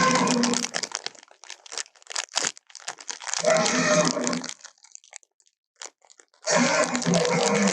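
Tyrannosaurus rex sound effect of feeding: three loud bursts of crunching and tearing with a low growling layer, and scattered sharp cracks between the first two, like bones breaking.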